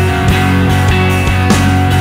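Rock music soundtrack with a steady drum beat and sustained guitar.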